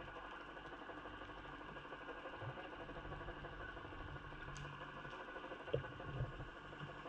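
Steady hum of a boat engine idling, heard underwater through a GoPro housing on a fishing jig. A sharp knock and a dull thump come close together near the end.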